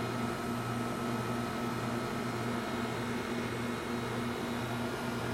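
2008 Goodman 2-ton heat pump outdoor unit running: a steady low hum with a faint high tone over an even rush of air. The coil is iced over and the unit has not gone into defrost, which the owner suspects is a bad defrost board.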